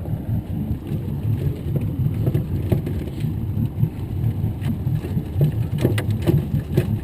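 A wire crab trap being handled and emptied on a boat: scattered knocks, clicks and rattles over a steady low rumble, with a cluster of knocks about six seconds in.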